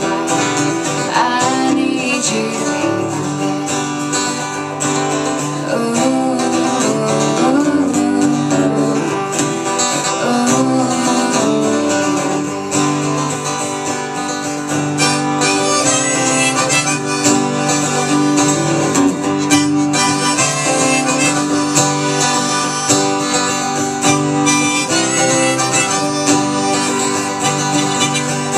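Instrumental break in a live country song: acoustic guitar accompaniment under a held-note lead melody line, with no singing.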